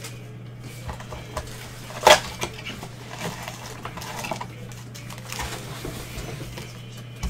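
Cardboard trading-card box handled and opened by gloved hands, with foil card packs rustling and sliding out onto the table in short clattering knocks. One sharp, loud knock about two seconds in. A steady low electrical hum sits under it.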